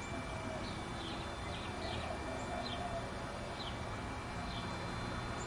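A bird calling with short, high, falling chirps about once a second, over steady outdoor background noise.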